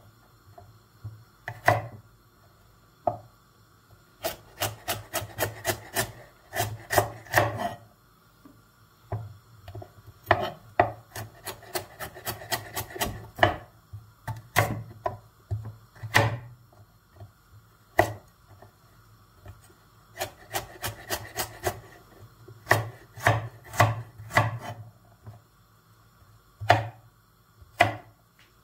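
Chef's knife chopping carrots on a wooden cutting board: sharp knocks of the blade hitting the board. They come in quick runs of about five strokes a second, with pauses and single cuts between.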